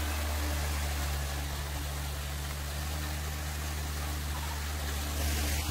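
Steady mechanical hum with a hiss over it, as of a motor running continuously without change in speed.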